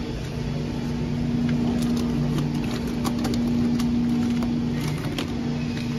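Steady low mechanical hum from a refrigerated display case, its fans running behind the vent grille, growing louder in the middle as the case is approached. A few light clicks and rustles come over it.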